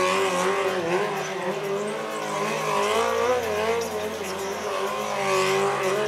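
Engine running at a fairly steady speed, its pitch wavering slightly up and down.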